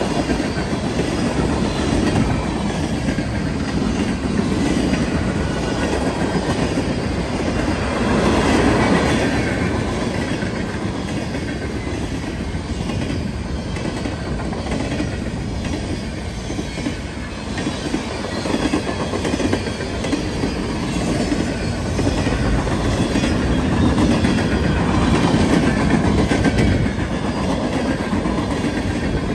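Freight cars of a manifest train (tank cars, covered hoppers, flatcars and boxcars) rolling past: a steady rumble of steel wheels on rail with clickety-clack as the wheels cross rail joints.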